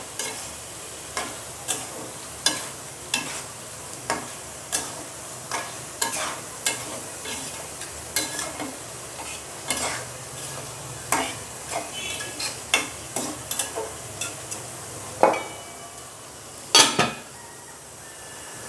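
Metal spatula scraping and knocking against an aluminium karahi as beef curry is stirred and fried in its spices, in a steady rhythm of about one to two strokes a second over a low sizzle. Near the end, a louder double clank as the aluminium lid is put on the pan.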